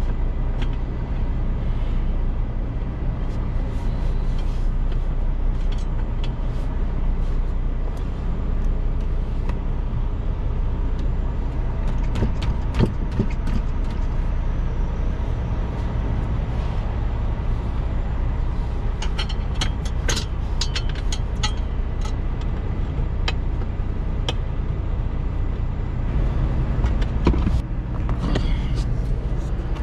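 Diesel engine of a semi truck idling with a steady low rumble, heard from inside the cab. Scattered sharp metal clicks and clanks over it, thickest about two-thirds of the way in, from the seat base and its mounting hardware being handled.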